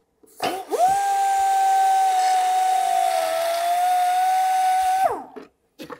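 Air die grinder with a carbide burr spinning up to a steady high whine over a hiss of exhaust air, grinding a V-groove into a cast-iron hand wheel. The pitch sags slightly near the middle, and about five seconds in the grinder shuts off and its pitch falls as it winds down.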